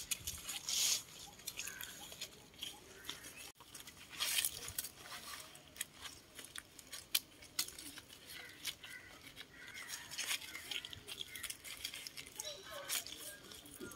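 Palm-frond leaflets crackling and rustling as they are plaited by hand into a thatch panel, in irregular crisp crunches and clicks.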